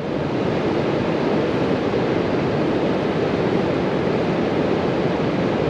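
Steady rushing of water pouring over a river weir.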